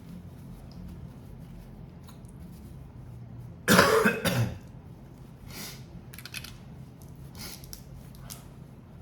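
A person coughs once, a harsh double burst about four seconds in, over a steady low hum.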